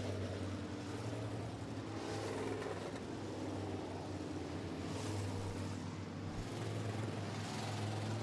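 Steady drone of modified race car engines running at low speed under caution, with a few soft swells as cars pass.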